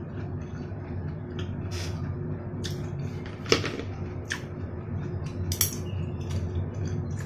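Chopsticks clicking and tapping against a plate and bowl while eating: several short sharp clicks, the loudest about three and a half seconds in, over a steady low hum.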